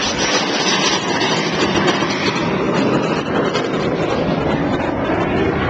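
Loud jet noise from a Red Arrows BAE Hawk jet flying past with its Adour turbofan at display power. The high hiss is strongest for the first second or so and then thins as the jet draws away, leaving a steady rushing rumble.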